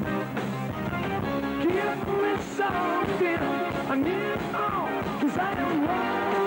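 Live rock band playing with drums and keyboards, and a lead line over the top that bends up and down in pitch.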